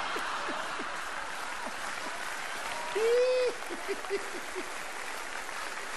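Theatre audience applauding, mixed with short bursts of laughter. About three seconds in, a louder, drawn-out laugh rises above the clapping.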